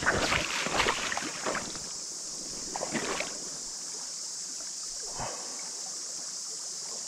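Water splashing and sloshing in shallow river water for the first second or two, with brief splashes about three and five seconds in, over a steady high drone of insects.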